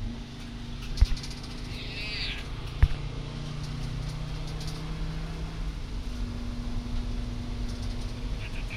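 Steady engine and road drone of a van heard from inside the cab while driving, with two sharp knocks, about a second in and again near three seconds, and a short high-pitched wavering call around two seconds in.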